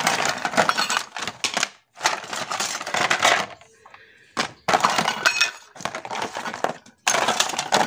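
Art supplies clattering as they are rummaged through by hand in a plastic basket: plastic paint palettes, brushes and paint tubes knocking and rattling together. The clatter comes in several stretches that start and stop abruptly.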